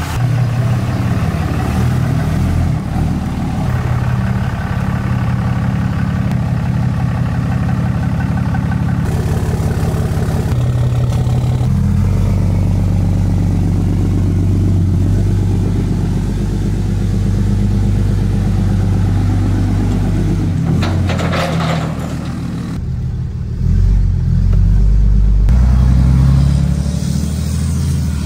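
Ram dually pickup truck's engine running and pulling, its pitch shifting in steps as it works. A short hiss comes about 21 seconds in, and the engine is louder and deeper for a couple of seconds near the end.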